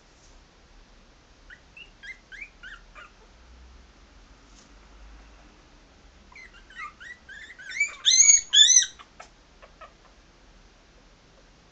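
3.5-week-old Maltese puppies giving high, squeaky whimpers. A few short squeaks come first, then a longer run past the middle that builds to two loud cries.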